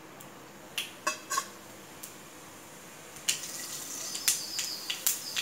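Mustard seeds, urad dal and fennel seeds frying in hot oil in a kadai for tempering. A soft sizzle with a few single pops at first, then from about three seconds in the mustard seeds start spluttering in a quick, louder run of crackles and pops.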